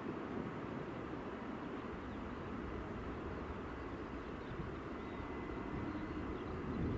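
Eurowings Airbus A319's CFM56 jet engines on final approach, heard at a distance as a steady jet rumble that grows slowly louder, with a faint high whine above it.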